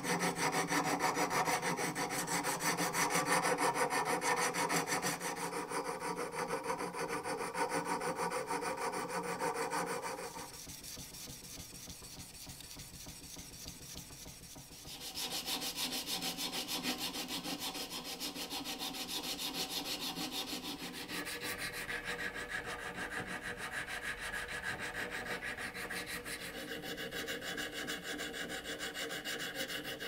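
Hand filing and sanding of a steel pocket-knife blade and tool, rapid back-and-forth scraping strokes. The scraping changes abruptly several times, at about 10, 15, 21 and 27 seconds, and is quieter between about 10 and 15 seconds.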